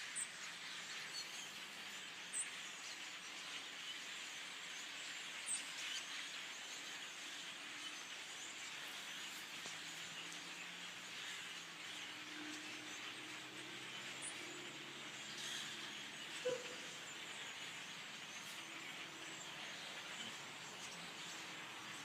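A large migrating flock of hundreds of tiny birds calling as it passes overhead: a dense, continuous chirping that sounds almost like rain. A few sharper, higher chirps stand out now and then.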